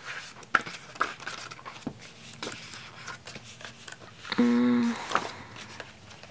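Glossy pages of a K-pop album photo book being leafed through and handled, giving scattered short rustles and soft paper clicks. A brief hummed "mm" about four and a half seconds in.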